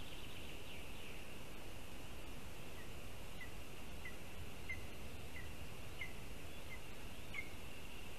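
Forest ambience with a steady high hiss. From about three seconds in, a bird repeats a short high call note roughly every two-thirds of a second, about eight times.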